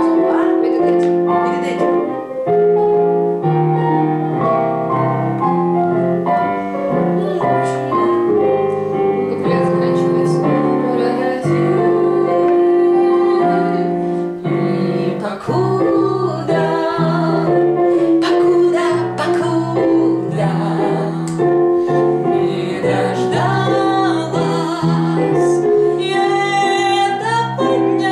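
A woman singing a pop ballad in Russian, holding long notes over piano accompaniment.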